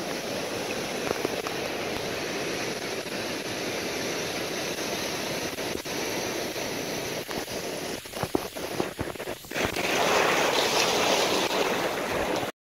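Steady rush of ocean surf at the shoreline, with a few faint clicks past the middle. A wave washes in louder over the sand near the end, then the sound cuts off suddenly.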